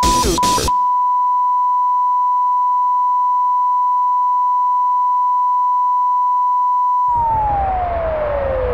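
Censor-style bleep tone from an experimental electronic track: a short burst of music chopped up by beeps gives way to one steady, pure beep held alone for about six seconds. Near the end the tone slides slowly down in pitch while a noisy hiss and rumble come in under it.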